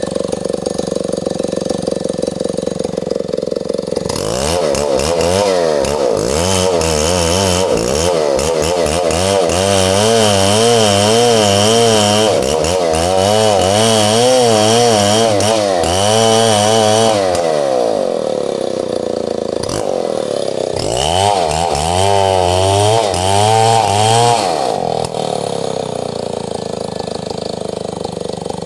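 Stihl 070 two-stroke chainsaw idling, then revving with its engine speed rising and falling again and again for about thirteen seconds, as when working through wood. It drops back to idle, revs the same way again for a few seconds, and returns to idle.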